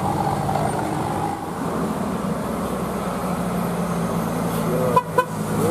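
Bus running along the road with a steady engine hum and road noise. Two sharp knocks come close together near the end.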